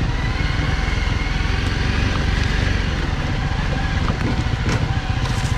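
Honda CRF250L Rally's single-cylinder engine running steadily, with a brief sharp click near the end.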